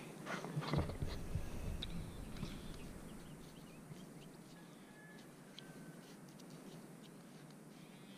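Rustling and scraping of soil and grass as a gloved hand probes a freshly dug hole with a handheld pinpointer, with a few soft thumps in the first couple of seconds, then quieter scuffing.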